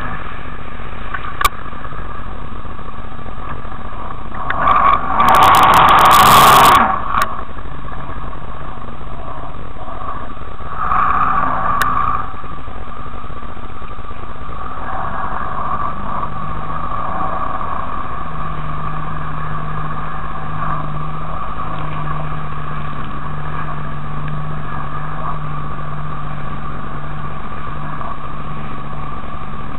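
Jet ski engine running under way, with wind and water rushing over the microphone. A much louder rush of noise lasts about two seconds, about five seconds in, and a steady low engine tone comes through in the second half.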